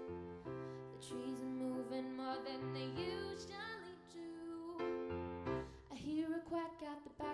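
A woman singing while accompanying herself on a grand piano, her voice over sustained piano chords.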